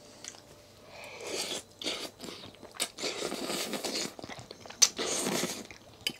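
A person slurping instant ramen noodles and soup off chopsticks: several noisy slurps of up to a second each, with a couple of sharp clicks between them.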